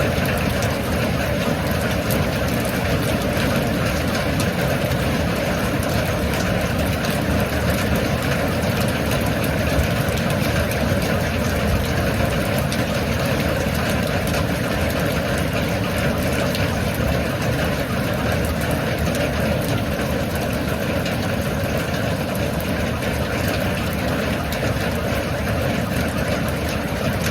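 Steady rain falling, a dense, unbroken hiss of drops that holds at the same level throughout.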